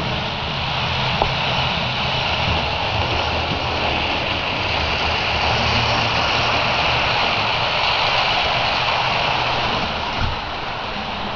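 Model train running along the track: a steady mechanical hum and rumble that grows a little louder midway, then eases near the end.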